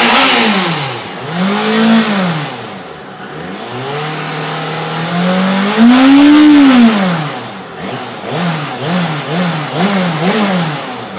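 Yamaha FZ6 S2's 600 cc inline-four engine being revved and let fall back several times: one rev about two seconds in, a longer climb peaking about six seconds in, then about five quick throttle blips near the end. The owner is chasing a metallic sound from this engine as a problem.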